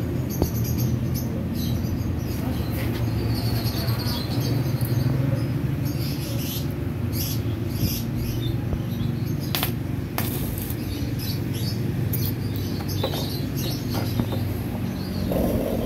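Steel tool scraping and prying in a crack in a motorcycle's steel frame, with scattered short squeaky scrapes and two sharp metal clicks a little after halfway, over a steady low hum.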